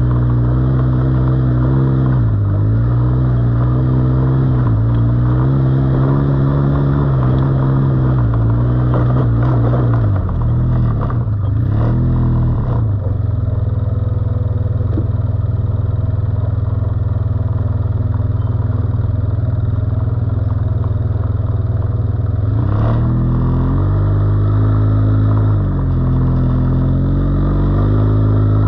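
ATV engine running under load along a trail, its revs dipping and rising every couple of seconds. About ten seconds in the revs drop and the engine runs steadier and lower for some ten seconds, then it revs up and down again near the end.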